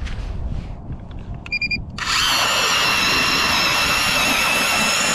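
StrikeMaster Lithium 24V electric ice auger: after a short beep, its motor starts about two seconds in and runs with a steady high whine as the bit bores through the lake ice.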